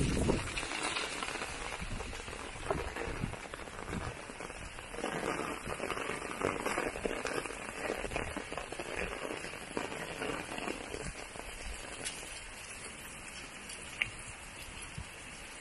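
Heavy rain falling: a steady hiss made up of many small drop impacts, with one sharper tap near the end.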